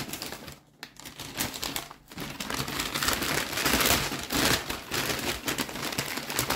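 Paper takeout bag crinkling and rustling as it is handled and opened, loudest in the middle.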